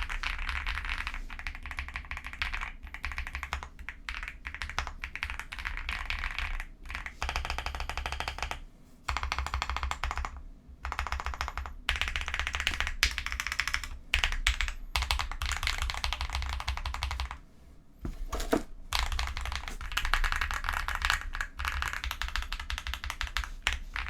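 Typing on an Epomaker x Feker Galaxy80 mechanical keyboard with lubed Akko V3 Creamy Purple Pro tactile switches, PBT keycaps and foam-filled case. Fast runs of keystrokes are broken by a few brief pauses, about nine, eleven and eighteen seconds in.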